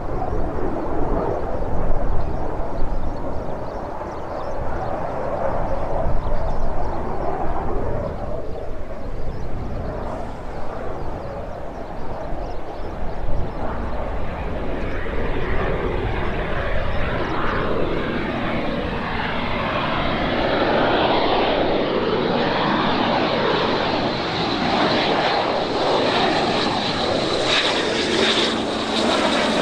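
Dassault Mirage 2000-5's single M53-P2 turbofan jet engine, heard as a continuous rushing roar as the fighter comes in on its landing approach with gear down. The sound wavers and sweeps as the jet moves and grows brighter as it closes in. A high steady whine joins about two-thirds of the way through.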